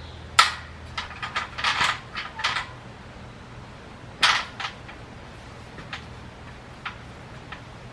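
Metal ladder clanking and knocking as it is set against a tree trunk and shifted into place. There is a sharp clank about half a second in, a run of knocks and rattles over the next two seconds, another clank about four seconds in, then a few light taps.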